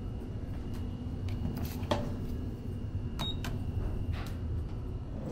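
Steady low hum with a faint high whine in a small elevator hall, broken by several light clicks and taps and one very short high beep a little past the middle.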